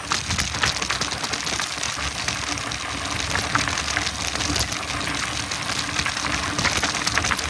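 Mountain bike rolling over a dirt trail: continuous tyre noise on dirt and loose stones, with many quick rattles and clicks from the bike.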